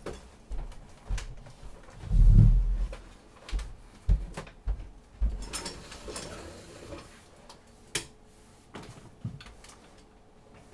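Scattered knocks, bumps and light rustling of a person moving about a small room and handling things, with one heavier low thump about two seconds in.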